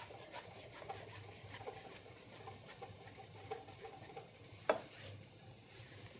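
Knife dicing a peeled tomato on a cutting board: faint, quick taps of the blade, with one louder knock about five seconds in.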